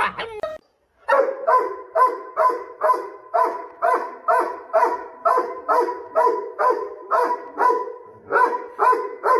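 A dog barking over and over at a steady pace, about two to three barks a second, starting about a second in after a brief gap.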